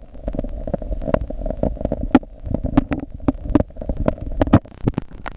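Rain falling on a lake, heard from just below the surface: a dense, irregular patter of drop impacts and pops over a steady low rumble.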